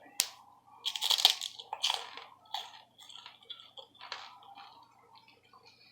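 Crunching of microwaved pork rinds being bitten and chewed close to the microphone. A sharp click comes just after the start and the loudest crunches about a second in; fewer and fainter crunches follow over the next few seconds.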